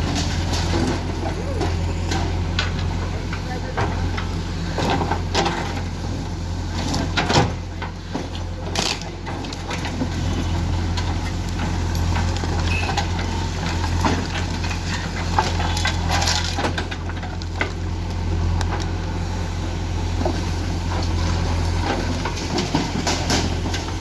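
Diesel engine of a backhoe loader running steadily while its bucket scoops and dumps waste, with irregular crunching and knocking of debris throughout.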